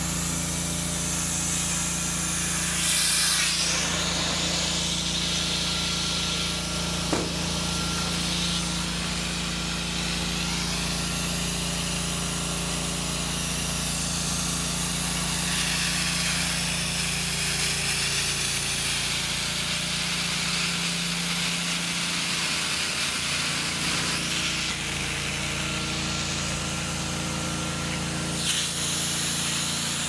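Hot-water extraction carpet-cleaning machine running: a steady hum of the vacuum with a rushing hiss of air and water through the stainless steel wand as it is drawn across the carpet in strokes. There is a brief louder rush a few seconds in and again near the end.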